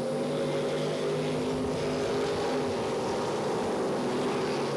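Several IMCA stock cars' V8 engines running hard together as the cars race around a dirt oval, a steady, blended drone.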